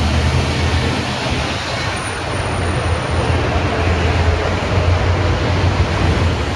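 Steady road traffic noise with a low engine rumble from passing vehicles.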